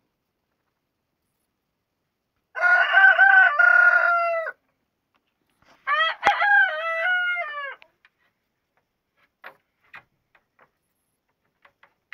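Rooster crowing twice, each crow about two seconds long, the second starting about a second and a half after the first ends. A few faint clicks follow near the end.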